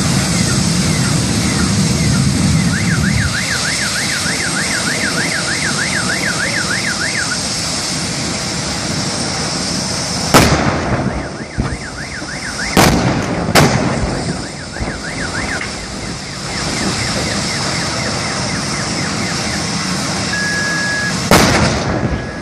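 Gas cylinders exploding in a burning crash wreck: four sharp bangs, the first about ten seconds in, two close together a few seconds later, and the last near the end as a fireball goes up. Before the bangs a car alarm warbles, about four cycles a second, over a steady rush of noise.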